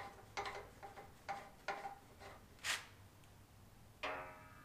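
A metal band saw's bow being lowered on its pivot: a regular series of light metallic clicks, a little over two a second, then a short swish. About four seconds in comes a metallic clank with ringing as the bow comes down.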